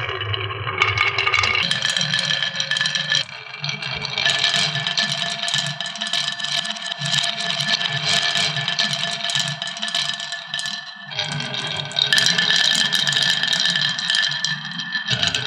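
Marbles rolling and rattling along a plastic marble-run track, with a steady ringing hum. The sound changes abruptly several times.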